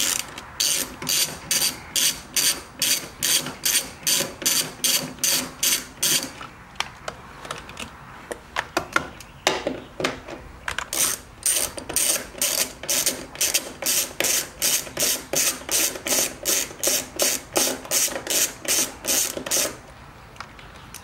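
Hand ratchet with a 10 mm socket, swung back and forth to back off nuts: quick runs of pawl clicking, about three strokes a second. It clicks in two long stretches with a pause of several seconds in the middle.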